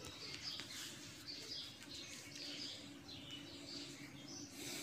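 Small birds chirping in quick repeated short calls in the background, over a faint steady low hum.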